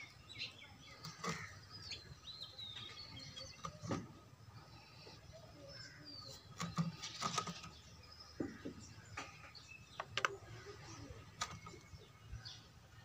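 Birds chirping now and then in the background, with a few sharp clicks and knocks, the loudest about ten seconds in.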